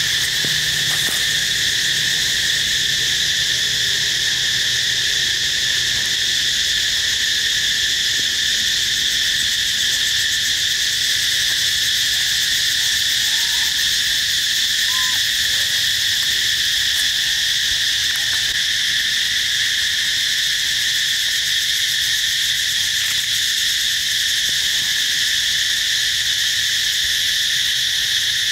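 A steady chorus of insects, a continuous high-pitched drone that does not let up.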